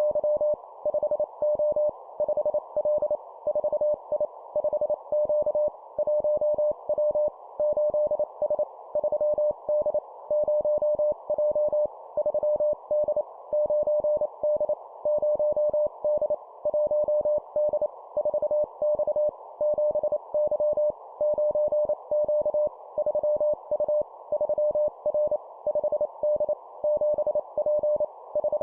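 Morse code (CW) practice tone keyed at 25 words per minute, sending short two-character groups of letters and numbers in dots and dashes with brief gaps between groups. A single steady mid-pitched tone sounds over a steady background hiss.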